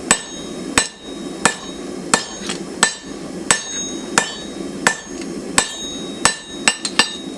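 Blacksmith's hand hammer striking hot steel on an anvil, one blow about every 0.7 s with a short metallic ring after each, then a quicker run of blows near the end. The bar is being forged into a knife blank, hit on the flat and then on the edge to keep it from mushrooming outwards.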